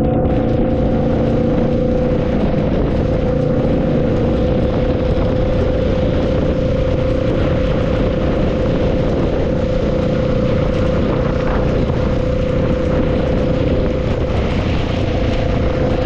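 A vehicle's engine drones at a steady pitch during a ride, over an even rush of wind and road noise. A few lower tones die away in the first couple of seconds.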